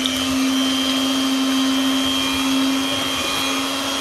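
Electric mixer running steadily at one speed, its beaters whisking waffle batter in a stainless steel bowl: an even motor hum with a high whine above it.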